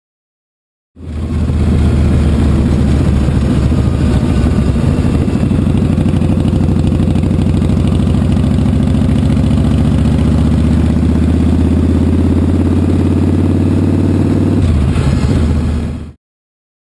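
Yamaha Star cruiser's V-twin engine and exhaust running under way, heard close up beside the exhaust pipe. The pitch climbs slowly as the bike gathers speed, drops suddenly near the end, and the sound cuts off abruptly.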